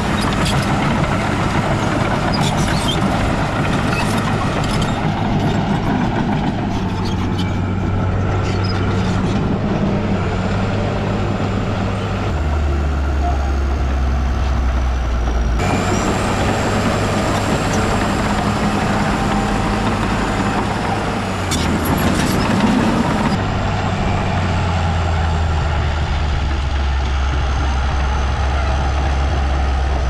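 Heavy diesel earthmoving machinery running steadily, its engine note dropping to a lower pitch at times, with scattered clicks and knocks.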